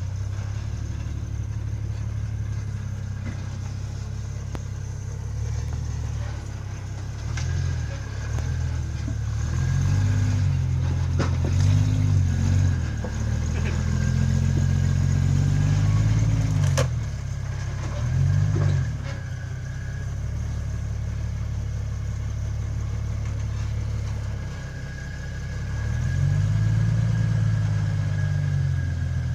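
Vehicle engine running under load on a trail drive, its revs rising and falling several times, with a few knocks, the sharpest about 17 seconds in.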